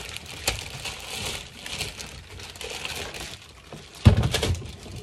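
Clear plastic packaging bag crinkling and rustling as it is handled and pulled off a high chair, then a few heavy thumps about four seconds in.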